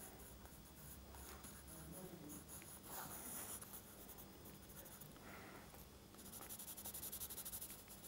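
Pencil scratching faintly on sketchbook paper as shading is drawn in. Near the end the strokes turn into a quick, even back-and-forth rubbing, about six a second.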